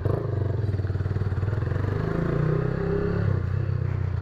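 Honda Titan 150's single-cylinder four-stroke engine running loud through a Roncar Aluminium Boca 8 aftermarket sport exhaust, the revs climbing about halfway through.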